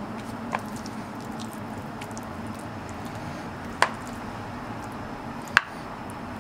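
Three sharp light clicks from kitchen utensils and dishes being handled while filling is placed on a gyoza wrapper, about half a second, nearly four seconds and five and a half seconds in, over a steady low hum.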